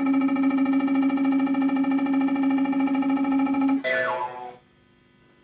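Road Hog fruit machine's electronic sound effect: a held, slightly warbling synth tone. About four seconds in it breaks into a quick falling run of notes and stops.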